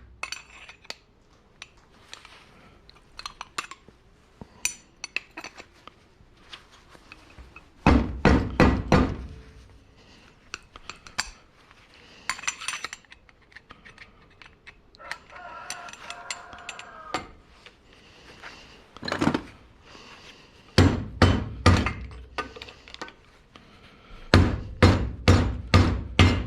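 Hammering on a metal paintball-marker part, trying to knock out an insert that is wedged inside: groups of several quick heavy strikes, with small metallic clicks and clinks of the parts being handled between them.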